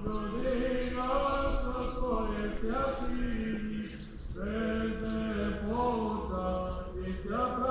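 Men's voices chanting together in long, held notes that slide slowly between pitches, with a short break about four seconds in: Orthodox-style church chant.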